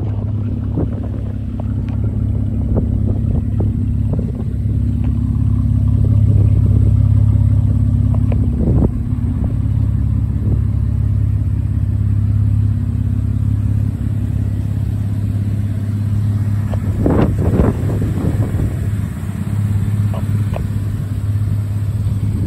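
A steady low mechanical hum from a running motor, unchanging throughout, with a few light knocks and scuffs about nine seconds in and again near seventeen seconds.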